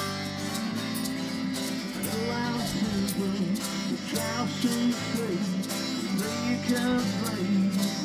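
Small acoustic band playing live: acoustic guitars strum a steady rhythm, and a melody line comes in over them about two seconds in.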